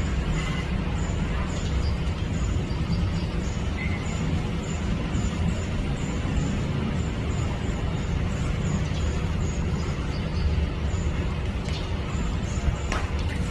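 Steady low background rumble of outdoor noise, like distant traffic, with faint short high chirps scattered through it and a single click near the end.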